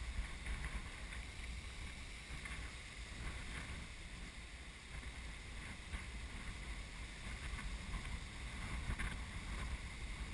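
Wind buffeting the camera's microphone, a steady low rumble, with a few faint clicks.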